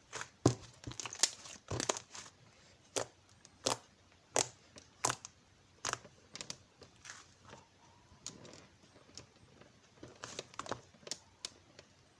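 Close handling sounds: crinkling and tearing mixed with sharp taps and clicks, coming at irregular intervals.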